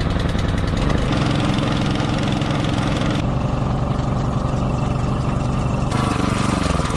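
Small engine-driven water pumps running steadily while draining a tide pool, a constant drone whose tone and hiss shift abruptly a few times.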